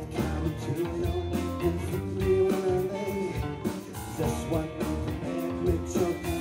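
Live rock band playing: electric guitar and bass guitar over a steady drum beat.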